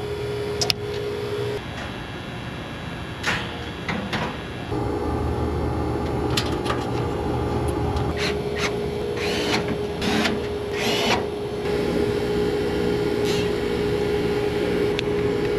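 Fieldpiece VP67 vacuum pump running with a steady hum while it pulls a vacuum on the AC system. The hum drops out for a few seconds near the start. Scattered clicks, knocks and scraping of hand tools sound over it as the condensing unit is reassembled.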